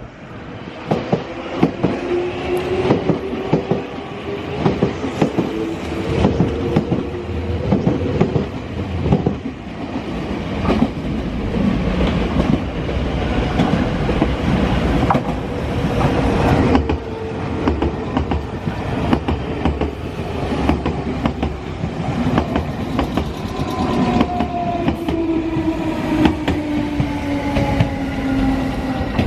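Nankai electric train running through the station, its wheels clattering over rail joints, with a motor whine that falls in pitch near the end as it slows.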